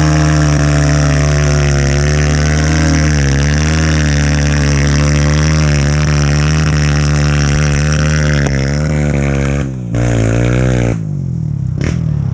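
Dirt bike engine running under load on a muddy trail, its revs rising and falling with the throttle. About eleven seconds in the engine note drops away, and a few short knocks follow.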